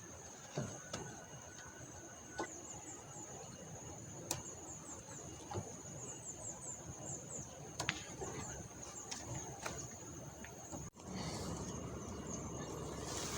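A steady high-pitched insect drone, with scattered light clicks and knocks from handling things close by. The sound drops out for an instant about eleven seconds in, and the background is louder afterwards.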